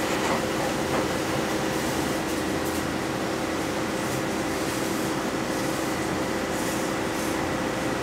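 Steady machine hum of a ramen shop's kitchen: several held tones over an even hiss, with a few faint light clicks.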